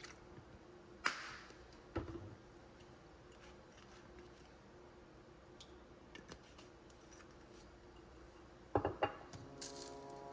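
Kitchen items being handled: a few sharp clicks and knocks, with a small cluster of them near the end, over a faint steady hum.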